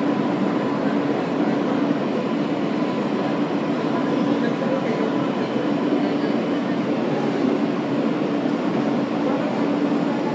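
Inside an R143 subway car slowing to a stop at a station platform: a steady running rumble with a constant hum underneath and no sharp knocks or squeals.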